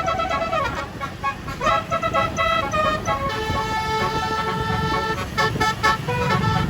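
A 36-note Basuri telolet bus horn playing a melody of loud, multi-tone musical notes, some sliding down and up in pitch in the first two seconds, then a long held chord from about three seconds in, over a low engine rumble.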